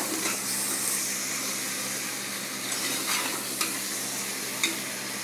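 A long steel spoon stirring boiled kidney beans through hot masala in an aluminium pressure cooker. The masala sizzles steadily, with a few scrapes and knocks of the spoon against the pot.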